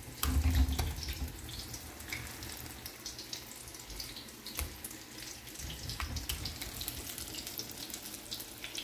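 Gobi pakoras (besan-battered cauliflower) deep-frying in hot oil in a karahi: a steady sizzle with scattered crackles and pops. A low rumble of the phone being moved stands out near the start.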